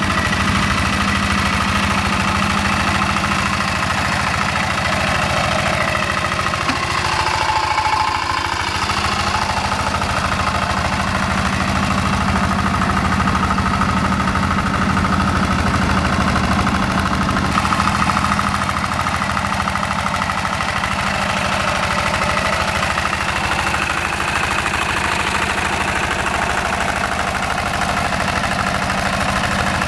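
Single-cylinder diesel engine of a two-wheel hand tractor running steadily as it drags a leveling implement through wet paddy mud.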